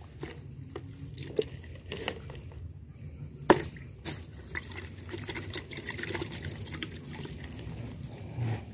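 Wet handling sounds of a freshly caught climbing perch gripped in the hand: scattered small wet clicks and ticks, with one sharp snap about three and a half seconds in.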